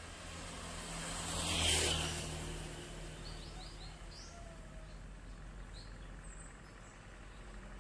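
Distant drone of an approaching ATR 72 twin-turboprop airliner's propellers, a steady low hum. A whooshing noise swells and fades about two seconds in. Birds chirp briefly in the middle.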